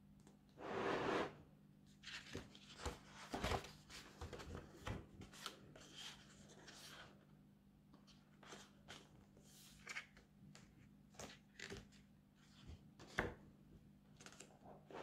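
Large sketchbook pages being turned by hand: soft paper rustling and flapping, with a swish about a second in and scattered small crinkles and taps, and a sharper tick near the end.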